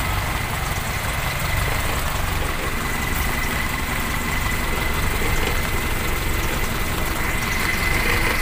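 Toyota Kijang Super's carburetted four-cylinder engine idling steadily with new spark plug leads fitted; the owner judges its sound much changed, the misfire (brebet) apparently cured. A steady high-pitched whine runs alongside the engine's rumble.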